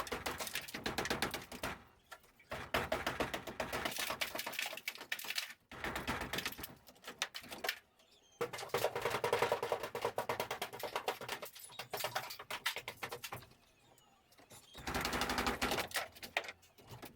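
Rapid clattering and knocking of old ceiling boards being torn down, in several stretches broken by sudden short silences.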